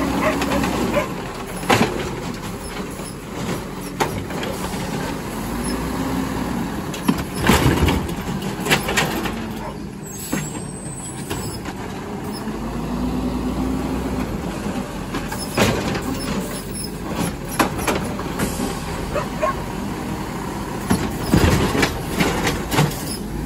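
Garbage truck engine revving up and back down three times, about eight seconds apart, as it packs its load of trash, with sharp metallic clanks and bangs in between.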